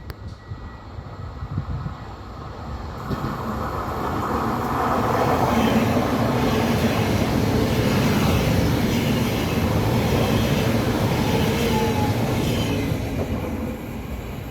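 Train passing through a station, its wheels and rails rumbling: it builds up over the first few seconds, stays loud through the middle, and eases off near the end.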